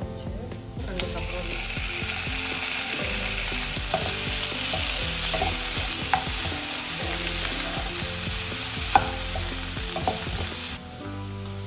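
Sliced onions, tomato and garlic sizzling in hot oil in a non-stick pan while a wooden spatula stirs them, with a few sharp taps of the spatula against the pan. The sizzling starts about a second in and cuts off abruptly near the end.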